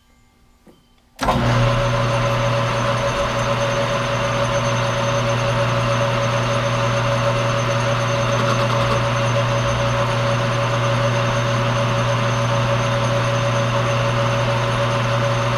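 Monarch Model K engine lathe running steadily, turning a piece of 4140 steel; the machine sound comes in suddenly about a second in, with a strong low hum and a steady higher tone over an even noise.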